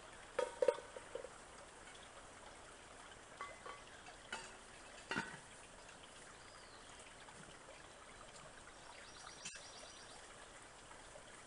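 Faint steady trickle of running water, with a few scattered knocks and clatters from someone working on the ground, the loudest near the start and a few more about four to five seconds in.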